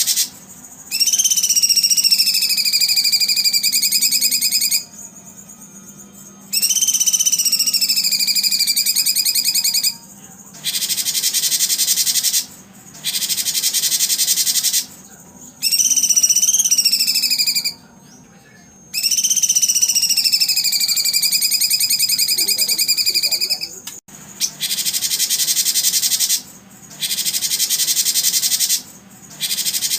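Insects buzzing in loud bursts of a few seconds each, separated by short pauses. Over four of the bursts comes a long whistled call that slides down and then holds its pitch.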